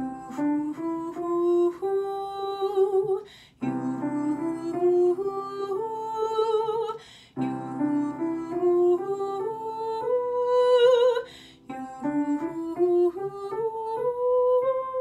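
A woman singing an ascending vocal exercise on "hoo", an "h" starting each "oo", over piano chords: four phrases, each opening with a chord and climbing step by step to a held top note with vibrato, each phrase reaching higher than the last (a fifth, a sixth, a seventh, then the octave).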